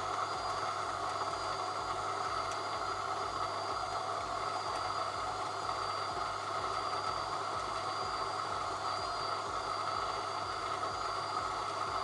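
Electric coffee grinder running steadily on a timed grind, its burrs milling espresso beans.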